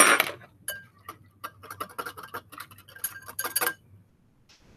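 A wire whisk stirring melted butter in a small bowl, its wires clicking rapidly against the sides with a light ringing. A short, louder clatter comes right at the start, and the clicking stops about four seconds in.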